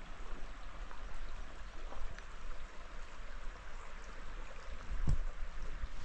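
Steady rush of flowing water from a forest creek and its falls, with a few faint footsteps and a low thump about five seconds in.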